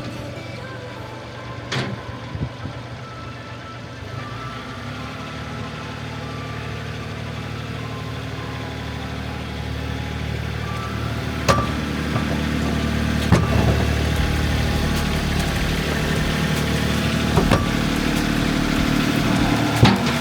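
John Deere 3032E compact tractor's three-cylinder diesel engine running steadily, growing louder about five seconds in and again past the middle, with a few sharp clicks or clanks over it.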